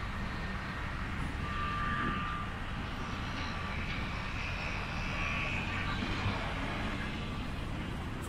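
Steady low rumble of distant city traffic, with a faint high tone about a second in and another from about four to six seconds.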